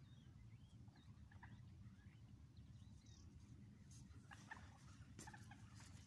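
Faint short calls and chirps from waterbirds, over a low steady rumble, with a few faint clicks between about four and five and a half seconds in.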